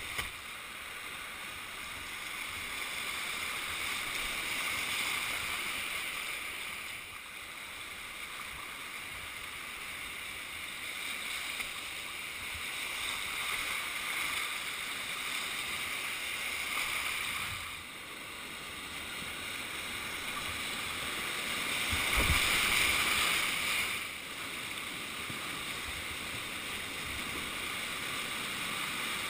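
Whitewater river rapids rushing steadily around a kayak. The rush swells and fades several times and is loudest for a couple of seconds about three-quarters of the way through. A brief knock comes at the very start.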